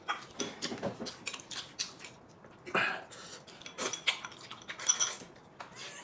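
Chopsticks clicking and scraping against a porcelain rice bowl as food is shoveled from it into the mouth: a quick, irregular run of sharp clicks.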